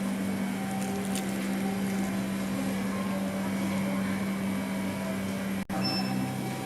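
A steady low machine hum with one pitch, running evenly, briefly cut out for an instant near the end.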